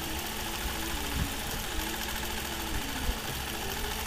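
Nolting Pro longarm quilting machine stitching steadily, its head driven across the quilt under IntelliQuilter computer guidance.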